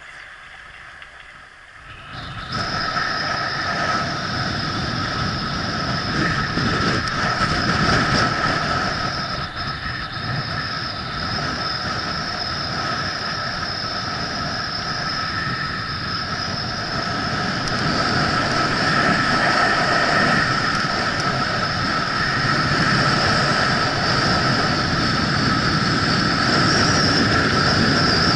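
Skis sliding and scraping over packed, tracked snow with wind rushing past a helmet-mounted camera, starting about two seconds in as the skier sets off. A steady high whistle runs through the noise.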